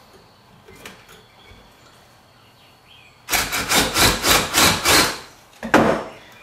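Yellow DeWalt cordless drill boring into a pine 2x4, starting about three seconds in. The bit chatters and grinds through the wood in rapid pulses for about two seconds while the holes for the screw joints are drilled. A single sharp knock follows near the end.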